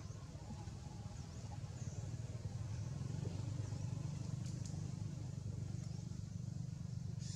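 A motor vehicle engine running with a steady low hum, growing louder about two seconds in. A short, high bird call repeats every second or two.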